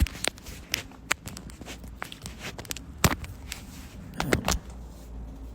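A string of irregular clicks and knocks, a few of them louder, over a low steady hum.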